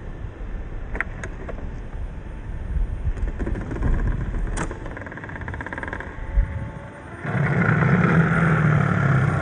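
1/10-scale Toyota Land Cruiser 80 RC crawler with a 540 brushed electric motor crawling over sand and gravel, with scattered clicks and crunches. About seven seconds in, a louder, steady whine from the motor and gears sets in as the truck drives close.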